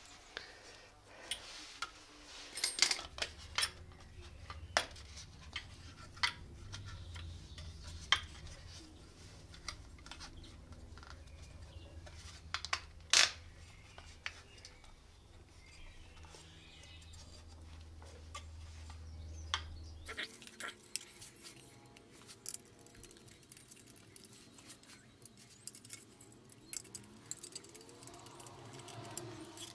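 Scattered light clicks and clinks of small metal and plastic parts being handled and fitted to a motorcycle licence-plate holder and its turn signal. Under them runs a steady low hum that stops suddenly about two thirds of the way through.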